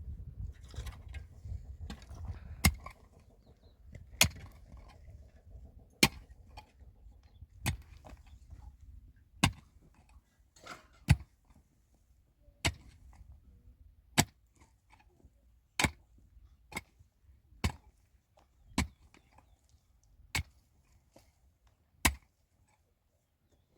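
A series of about fourteen sharp strikes at a steady pace, roughly one every one and a half seconds, coming a little quicker about two-thirds of the way through.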